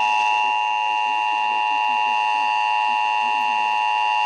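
Emergency Alert System attention signal over weather radio: a steady alert tone of several pitches sounding together, marking the start of the Ohio statewide EAS test.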